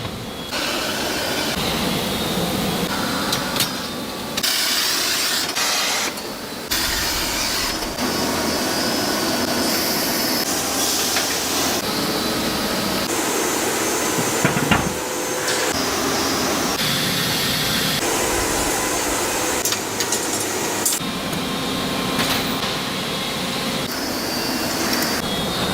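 Workshop machine and tool noise that changes abruptly every few seconds as short clips cut from one to the next, with a sharp knock about 15 seconds in.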